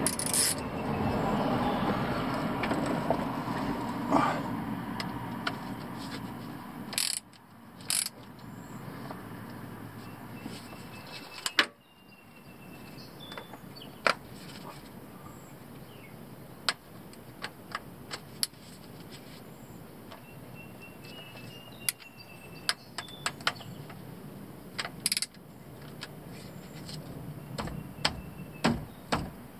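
Hand tools clicking and clinking against metal in scattered, irregular sharp clicks during work on a pickup's front differential plugs. A steady rushing noise underneath fades away about seven seconds in.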